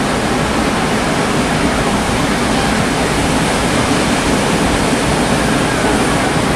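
Steady, even rushing noise of wind and choppy sea waves.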